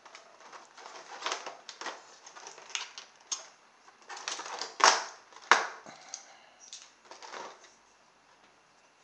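Plastic toy train pieces being handled and lifted out of their moulded plastic packaging tray: irregular clicks, rattles and scrapes, with two louder knocks about five seconds in.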